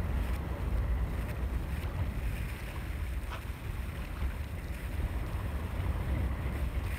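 Wind buffeting the microphone in a steady, gusty low rumble, over small waves lapping at the water's edge.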